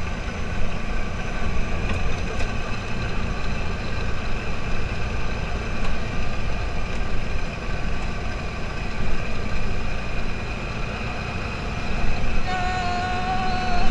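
Open dune buggy's engine running while it drives along a bumpy dirt road, with a heavy low rumble on the microphone. A steady higher tone joins about a second before the end.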